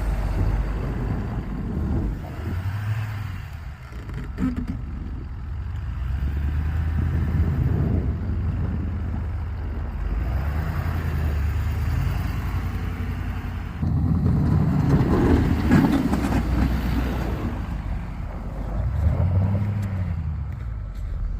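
An engine running steadily, its pitch rising and falling several times, with a rising then falling glide near the end.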